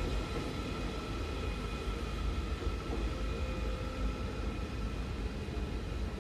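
Marmaray electric commuter train moving away: a steady low rumble with a faint high whine that fades as the train draws off.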